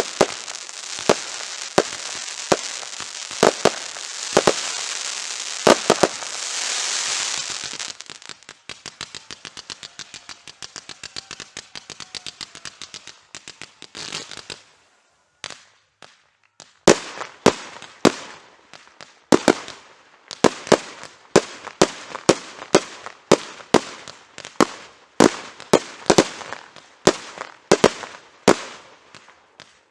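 Fireworks display: shells bursting with loud bangs over a dense crackle for the first eight seconds or so, then a fast patter of small crackling pops that thins out and stops around fifteen seconds in. After a short lull a steady run of sharp bangs follows, about two or three a second, to the end.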